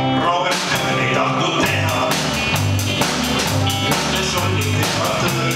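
Small rock band playing live: electric guitars and bass guitar over a drum kit, with a steady beat. The cymbals come in about half a second in.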